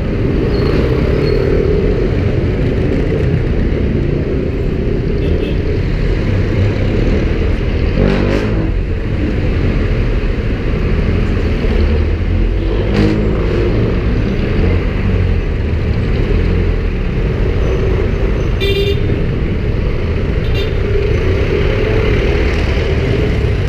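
City street traffic heard from a moving scooter: a steady low rumble of engines and road noise, with a few short vehicle horn toots.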